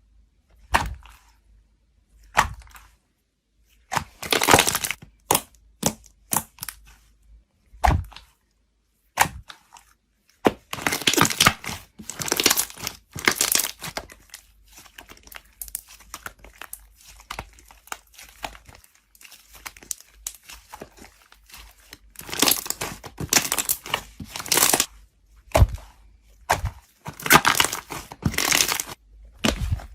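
Slime being squeezed, pressed and stretched by hand, giving irregular bursts of crackling and popping with sharp clicks in between.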